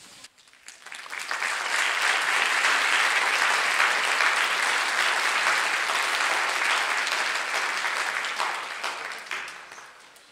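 Concert audience applauding at the end of a piece: the clapping swells up about a second in, holds steady, and dies away near the end.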